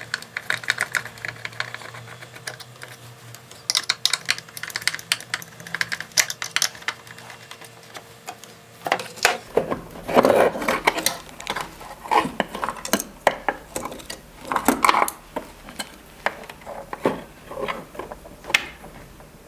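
Screws being undone from a small electronic amplifier and its circuit board and casing handled: light metallic clicks and ticks, turning into louder knocks and rattling from about nine seconds in.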